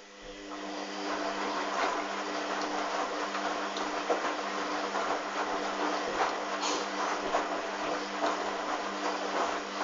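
Hoover Dynamic washing machine running: a steady hum with a busy clatter of small rattles and water noise, starting up and building over the first second.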